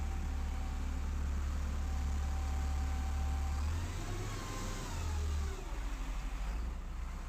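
A motor engine running steadily, its pitch rising and falling about halfway through as it revs.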